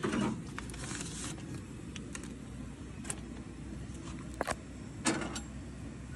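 Small portable butane camp stove burning with a steady low rush, with a few sharp metal clicks and taps as a papad is turned on the burner with tongs.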